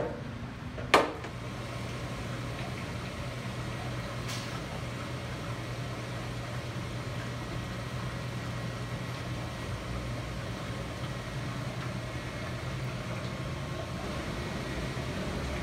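Steady low hum of running machinery, with a sharp click about a second in and a fainter click at about four seconds.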